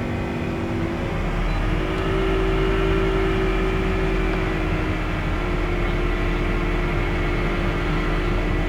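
Toyota Noah ZRR70's 3ZR four-cylinder engine running with a loud growling whine, its pitch stepping up about a second in and shifting slightly around five seconds in. The owner feared the noise meant engine damage.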